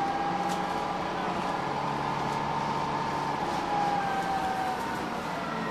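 Dennis Trident double-decker bus under way, heard from inside the passenger saloon: the engine runs with a steady high whine from its three-speed Voith automatic gearbox, which dips slightly in pitch about four seconds in.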